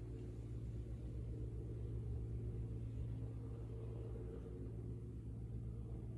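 Steady low drone of a fishing boat's diesel engine under way, heard across open water.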